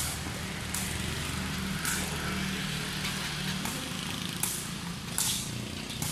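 A sepak takraw ball being kicked back and forth in a rally, a short sharp smack every second or so, about six in all. Under it runs a steady low hum.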